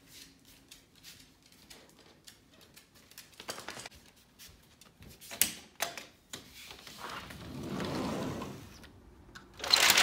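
Rapid light clicks and footsteps on a tile floor as a small dog trots along. Then a sliding glass door is rolled open along its track, a rumble that swells and ends in a loud harsh scrape near the end.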